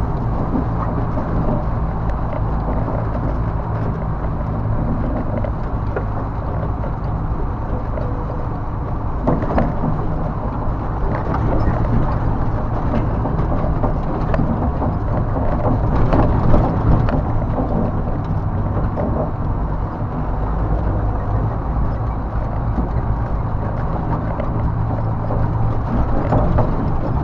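1991 BMY M925A2 6x6 military truck driving off-road, heard from inside the cab. Its Cummins 8.3-litre six-cylinder turbodiesel runs steadily under load. A few knocks from the truck going over bumps come through, the loudest about two-thirds of the way through.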